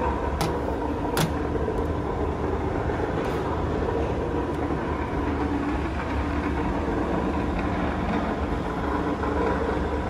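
Steady mechanical din of road-works machinery, with two sharp clicks about half a second and a second in.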